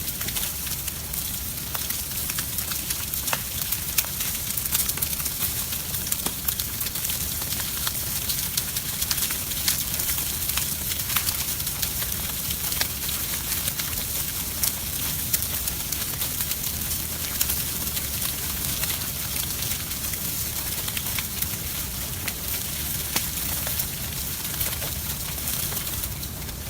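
Chicken sizzling over a grill fire: a steady hiss with frequent sharp crackles and pops.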